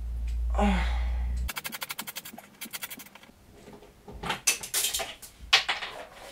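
A brief vocal sound over a low hum, then a fast even run of clicks, about ten a second, lasting under two seconds, then a few scattered sharp knocks, as of tools or parts being handled.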